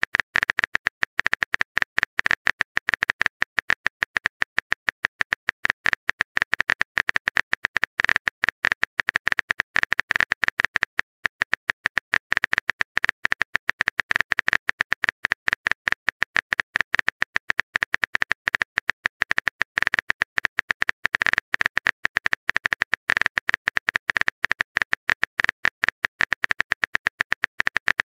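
Texting-app keyboard typing sound effect: a rapid, even run of short clicks, one per character, as a message is typed out, with a brief pause about eleven seconds in.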